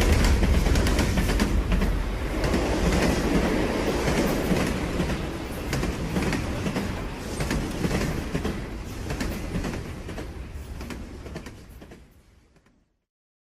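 A heavy rumbling and clattering with many sharp clicks, fading away over about twelve seconds until it stops.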